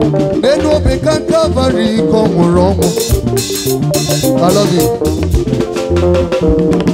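Live band music led by a drum kit: quick drum strokes on the miked drums with cymbal hits over an electric bass line and other melodic parts. A dense run of cymbal crashes comes about three to four and a half seconds in.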